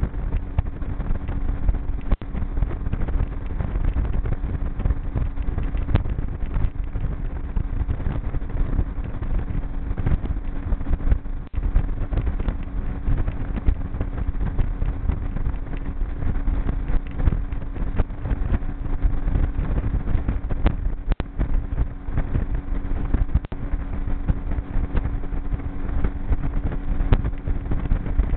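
Outboard motor of a G3 V167 aluminum fishing boat running steadily under way, a constant engine hum over heavy wind rumble on the microphone, with a few sharp knocks scattered through.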